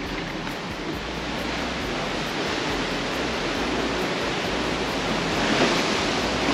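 Steady rush of sea water churning along the side of a moving cruise ship, growing a little louder over the first few seconds.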